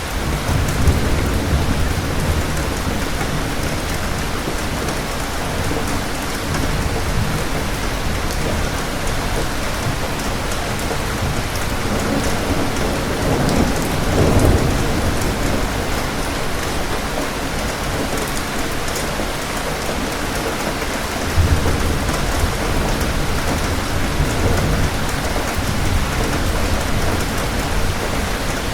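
Steady rain with rolling thunder: a low rumble sets in just after the start, another swells up about halfway through, and a third breaks in suddenly about three quarters of the way in.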